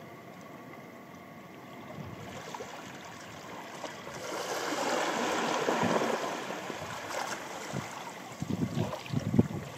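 A wave washing up a beach, swelling over a few seconds and then fading, with a few low thumps near the end.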